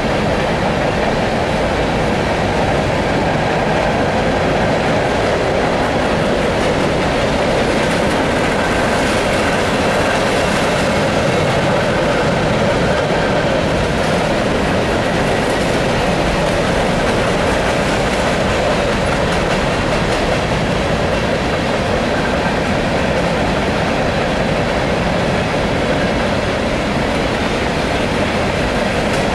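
Empty covered hopper cars of a long grain train rolling steadily past, their steel wheels running along the rails in a loud, even noise.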